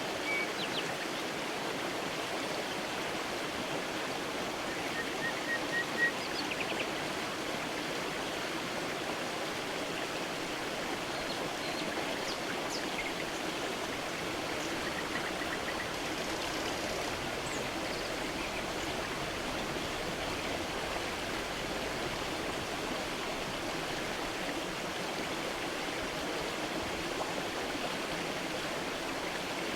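A creek's water running steadily, with a few short bird chirps in the first half.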